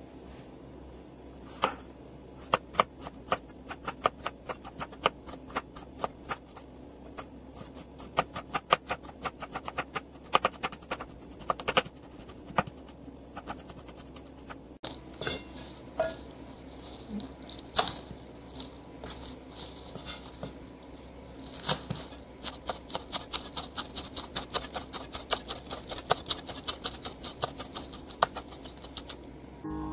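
Kitchen knife chopping on a bamboo cutting board: quick runs of sharp taps as garlic cloves are minced, then, after a short break about halfway through, faster and denser taps as green onions are sliced.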